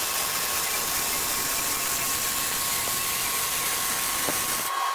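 Electric arc welding on steel tubing: a steady crackling sizzle from the arc that cuts off abruptly just before the end as the weld stops.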